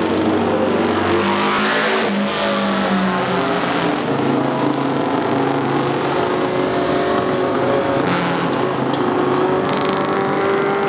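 Racing motorcycle engines revving and accelerating past on a hillclimb course, the pitch rising and falling as the bikes pass one after another.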